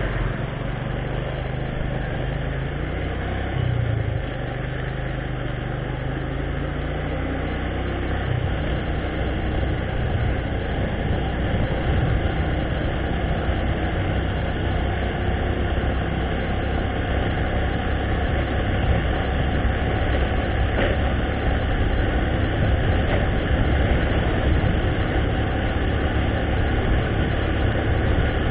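Engine hum with wind and road noise from a vehicle moving along a street, heard from on board. A pitched engine drone stands out for the first several seconds. After that, a low rushing rumble slowly builds as the ride goes on.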